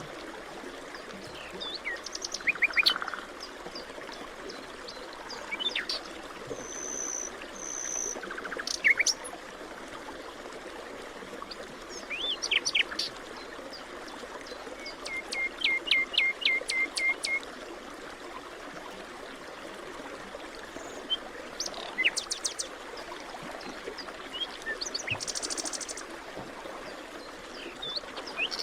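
Several songbirds calling and singing in a forest: scattered short chirps, whistles and quick trills, one a rapid run of about eight notes midway through, over a steady soft hiss of background noise.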